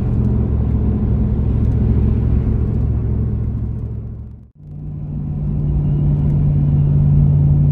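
Steady low drone of a Lexus GX470 SUV on the road, engine and road noise together. About halfway through it fades to silence for a moment, then returns with a steadier, stronger hum.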